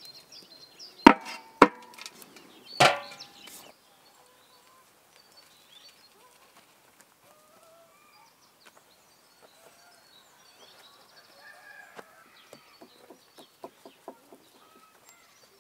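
Three sharp knocks, about a second and a half, two and three seconds in, the third followed by a ringing tail of about a second. After that, faint bird chirps and scattered light clicks.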